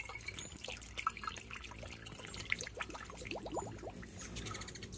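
Homemade sugar-water nectar being poured from a jug into a hummingbird feeder, trickling and dripping. There is a brief rising gurgle about three and a half seconds in.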